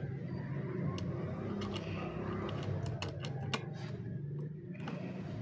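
Light switches in a three-way circuit clicking as they are flipped, several sharp clicks over a steady low hum.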